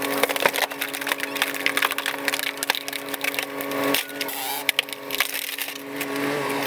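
Wood cracking and splintering in a rapid run of sharp snaps, typical of a tree or log being broken by heavy forestry machinery, with a machine's engine running underneath.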